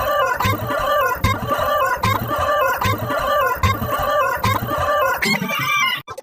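Chicken clucking sound effect, looped in a steady rhythm with a sharp click roughly every 0.8 seconds, cutting off abruptly near the end.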